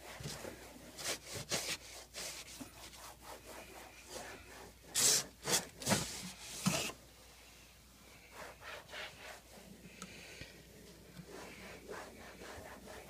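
A wet microfiber cleaning glove scrubbing beer residue off a kegerator with repeated back-and-forth rubbing strokes. The strokes are loudest about five to seven seconds in, then fainter.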